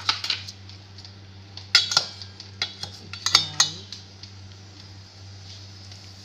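Metal utensil clinking and scraping against a stainless steel bowl of marinated beef, in three short clusters over the first four seconds, the last with a brief ringing scrape.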